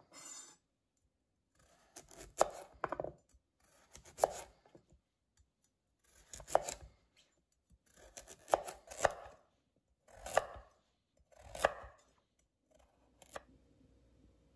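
A chef's knife slicing a peeled raw carrot into rounds on a wooden cutting board: about eight separate cuts a second or two apart, each a short crunch through the carrot ending in a knock of the blade on the board. Near the end a faint steady tone comes in.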